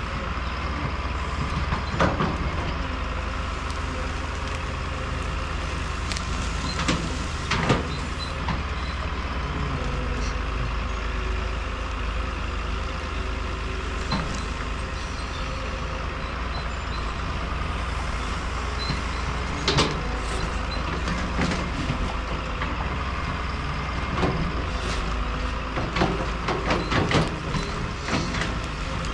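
Caterpillar tracked hydraulic excavator's diesel engine running steadily under digging load, with scattered knocks and scrapes as the bucket works through earth and tree roots, several bunched together near the end.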